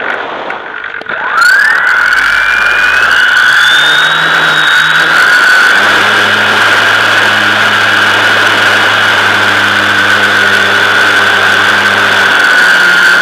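Model airplane's electric motor and propeller, heard from on board: about a second in it throttles up, its whine rising in pitch over a few seconds, then it runs steadily at high power.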